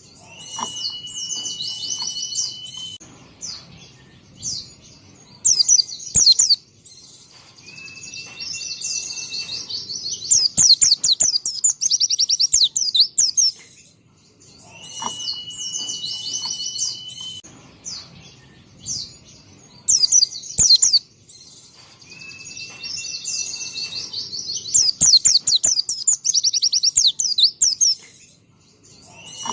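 White-eye (pleci) singing energetically: rapid high twittering trills and sharp chips, broken by long steady high whistles. The same song sequence repeats about every 14 seconds, as a looped recording.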